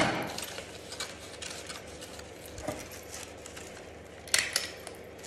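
Cardstock paper strips being handled and stapled with a desk stapler: a sharp knock right at the start, light paper rustling, then a quick pair of stapler clicks a little after four seconds in.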